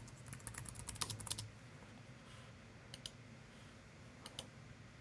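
Typing on a computer keyboard: a quick run of keystrokes over about the first second and a half as a search phrase is typed, then two short pairs of clicks around three and four seconds in.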